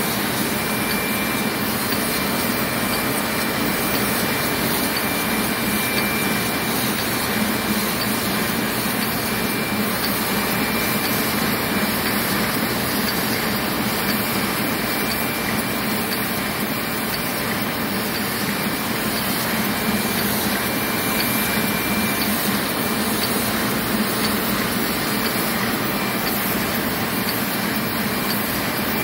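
Roland 206 sheet-fed offset printing press and its feeder running: a steady mechanical din with a faint, even high whine.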